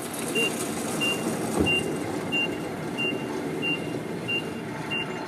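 Forklift's reversing alarm beeping, one steady tone repeated evenly about three times every two seconds, over the low running of its engine.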